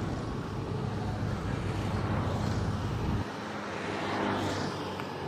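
Steady roar and rumble of a WAG-9 electric locomotive hauling a loaded container freight train as it approaches. The deep part of the rumble drops away suddenly about three seconds in.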